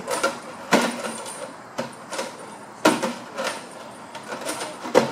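Irregular knocks and rattles of a plastic enrichment toy on a rod as a giraffe grabs and tugs it with its mouth, the toy clattering against the rock wall. The loudest knocks come about a second in, near the middle and near the end.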